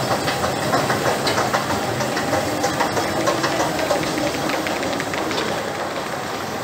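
Metro escalator running, its moving steps and mechanism clattering rapidly, with the rattle easing off about five seconds in.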